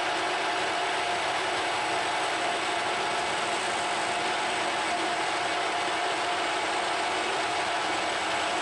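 Metal lathe running steadily while a turning tool cuts the face of a spinning cylinder head, machining its register step and peeling off chips.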